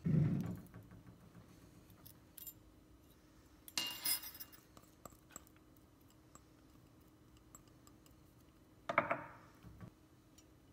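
Kitchen dishes and utensils handled on a countertop. There is a dull knock at the start, a brief clink of dish or spoon about four seconds in, and another knock and rattle about nine seconds in as a small white bowl is set down.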